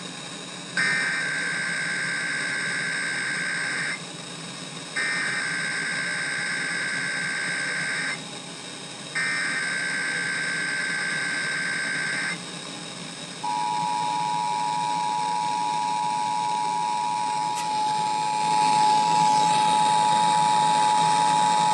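Emergency Alert System SAME header: three bursts of warbling digital data tones, each about three seconds long with a second's gap between them. Then the steady two-tone EAS attention signal (853 and 960 Hz) begins about halfway through and holds, over radio hiss.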